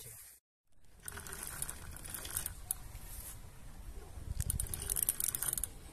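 Irregular rustling and clicking handling noise. It follows a brief dropout about half a second in and is loudest, with a low rumble, a little before the end.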